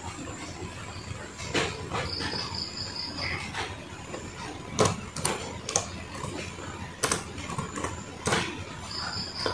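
Laptop keyboard keys clicking and tapping a handful of times at uneven intervals. A cricket chirps in a short, high, pulsed trill, once early and again starting near the end.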